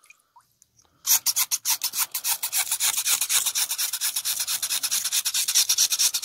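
Stiff brush scrubbing a wet aluminium scooter gearbox cover with rapid back-and-forth strokes, several a second, starting about a second in.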